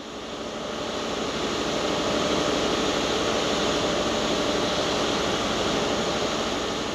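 Steady machine noise of railway station ambience, fading in over the first two seconds, with a faint steady hum.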